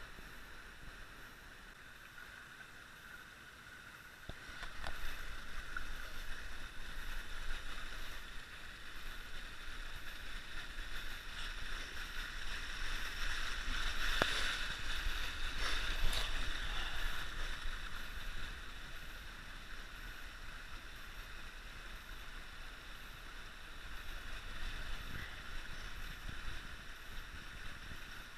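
A gentle creek flowing over shale, a steady rush of water that grows louder about four seconds in and eases off again in the second half, with a few faint knocks.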